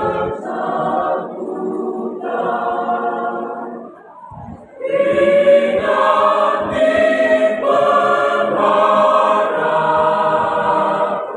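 Mixed choir of men and women singing a hymn unaccompanied, in parts. About four seconds in the voices briefly drop away between phrases, then come back in fuller and louder.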